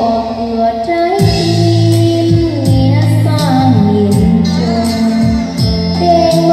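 A woman singing a Vietnamese love song over instrumental backing, her voice run through a DSP echo and reverb board. She holds long notes and slides between them.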